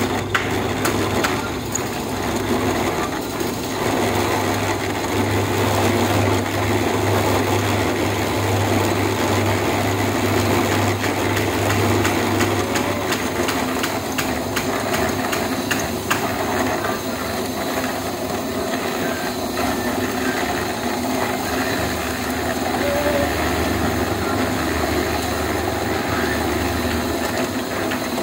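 Electric drum concrete mixer running steadily, its motor humming while the drum churns a wet cement mix, with scattered light knocks and scraping.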